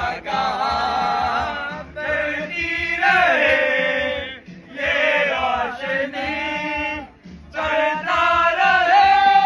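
A group of men singing a chant together in long, drawn-out phrases, with short breaks between them.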